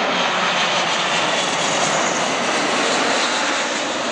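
A Boeing 777-236(ER) airliner's twin GE90 turbofan engines at approach power, the jet passing low overhead. The engine noise stays loud and steady throughout.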